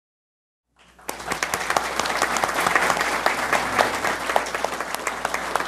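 Applause from the hall and the people on stage, many hands clapping together. It starts abruptly about a second in, out of dead silence, and holds steady.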